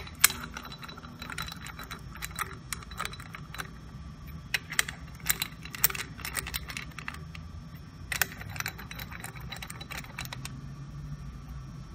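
Bolts being threaded in by hand into a vane pump's housing: scattered light metallic clicks and clinks, metal tapping on metal, with a denser cluster in the middle.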